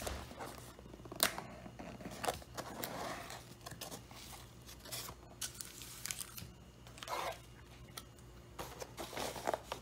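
Cardboard Big Mac clamshell box being opened and handled on a table: a scattered series of short scrapes, rustles and clicks of paperboard.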